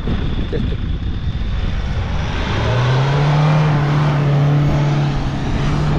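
Hyundai Terracan SUV driving up a sandy track close by. From about halfway through, its engine holds a steady, high-revving note under load.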